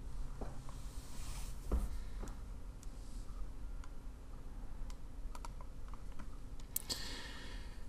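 Faint, scattered clicks of a computer keyboard and mouse as the software is operated, over a steady low hum, with a short rustling noise near the end.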